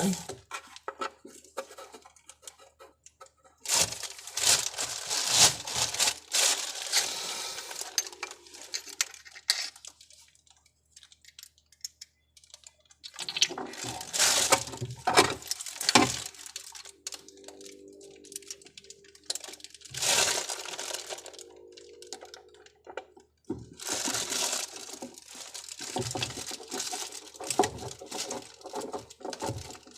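Rustling, crinkling and clattering of parts and tools being handled, in uneven bursts with sharp clicks and knocks, a few seconds' pause in the middle, and a faint steady hum for a while afterwards.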